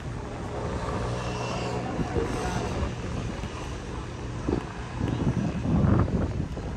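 A motor engine running steadily with a low hum for the first few seconds, fading out about halfway through. Gusts of wind then buffet the microphone.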